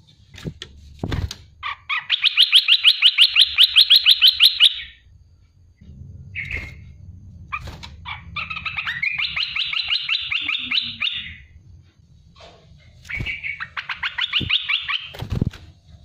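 Olive-winged bulbul calling in three bursts of fast, evenly repeated notes, each burst lasting two to three seconds.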